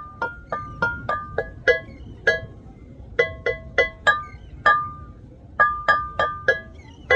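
A tune of quick, ringing mallet-percussion notes, like a marimba alarm tone, played in short phrases with brief pauses between them.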